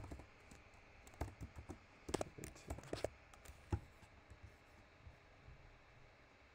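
Computer keyboard typing: a scattering of sharp key clicks over the first four seconds or so, then only faint room tone.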